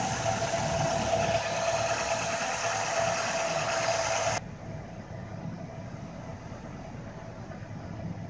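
Nissan X-Trail engine idling steadily, with a thin steady whine over the running noise. About halfway through the sound suddenly becomes quieter and duller.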